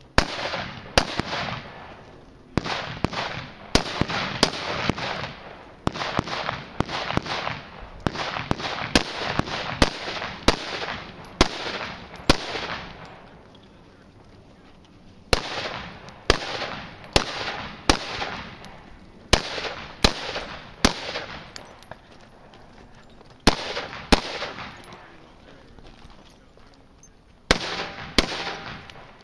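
Rifle fired in quick strings of single shots, each a sharp crack with a trailing echo. There is a long string over the first dozen seconds, then shorter strings separated by pauses of a few seconds.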